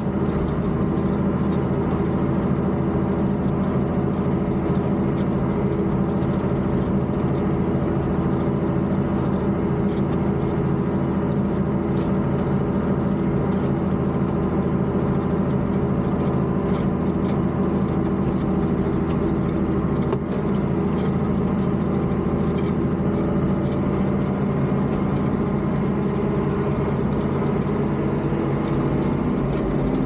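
Tractor engine running steadily at a constant pitch, with a brief dip in level about twenty seconds in.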